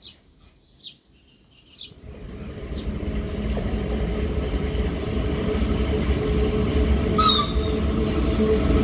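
Electric train approaching on the line, its low rumble and hum building steadily from faint to loud, with a brief sharp high-pitched sound about seven seconds in. A few short high chirps in the first two seconds.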